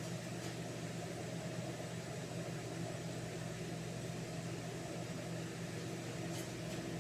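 Steady low mechanical hum, with a faint click about half a second in and another near the end.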